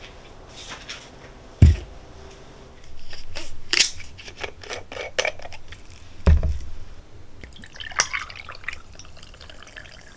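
Kitchen work sounds: dishes and utensils clinking, a brief run of water, and two dull thumps, about 1.7 and 6.3 seconds in.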